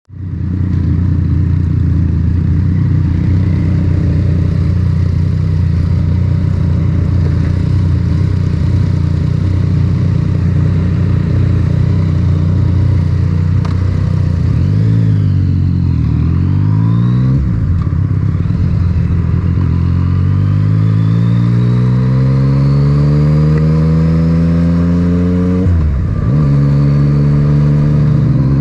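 Yamaha MT-09's inline three-cylinder engine through an Akrapovic titanium exhaust, heard onboard: running steadily for the first half, then revving up in pitch, dropping at gear changes around the middle and again near the end, and pulling hard through the gears.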